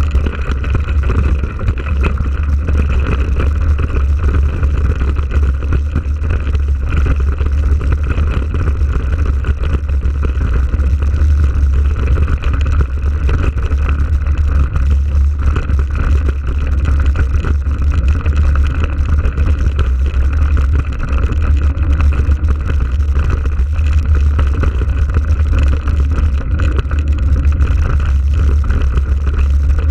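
Steady, loud low rumble of wind and riding noise on an action camera carried on a mountain bike rolling along a rough dirt track.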